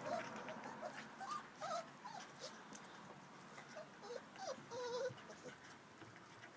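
Four-week-old puppies whimpering and squeaking: many short, high, wavering calls from several pups, scattered through, one a little longer about five seconds in.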